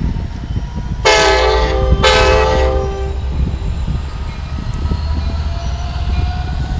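Amtrak Pacific Surfliner locomotive horn sounding two blasts as the train departs, a chord of several notes, the first about a second long and the second shorter, right after it. Under the horn the diesel locomotive's engine rumbles steadily, beginning to power up for departure.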